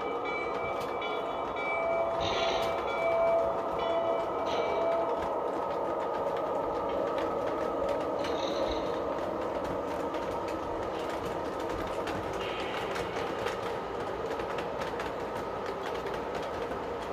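O-gauge model trains running on a layout, including a Lionel GG1 electric locomotive, with freight cars rolling past close by: a steady rolling rumble of wheels on track and motor hum.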